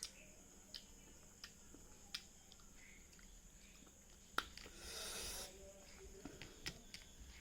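Close-up mouth sounds of a person chewing cow skin with perilla seeds: sparse wet smacking clicks, with one longer, noisier chewing sound lasting about a second, a little past the middle.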